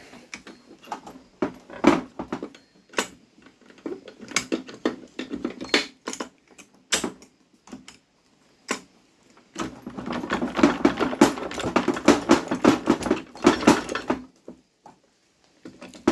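Steel gear shafts and shift forks of a Honda F23/H22 manual transmission clinking and clattering against the aluminium case as the heavy assembly is worked out in one piece, with a dense run of knocks near the end.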